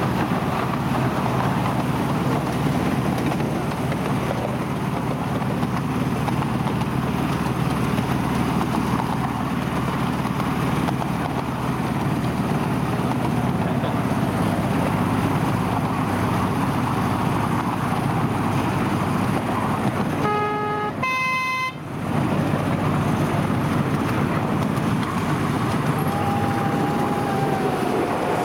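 Miniature railway train hauled by a diesel locomotive running along the track, a steady rumble of engine and wheels on rail. About three-quarters of the way through comes a brief horn toot in two notes, low then high.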